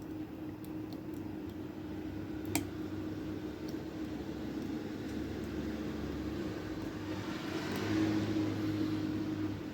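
Faint, sharp little clicks of lock picking tools working the pins of a lock, a few scattered over the first few seconds, over a steady low hum. A soft hiss swells briefly near the end.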